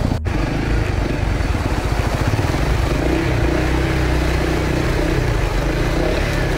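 Honda CRF250L single-cylinder motorcycle engine running steadily at low speed as the bike rides across a flooded causeway, heard from the bike itself under a steady rush of noise. The sound breaks for an instant about a quarter second in.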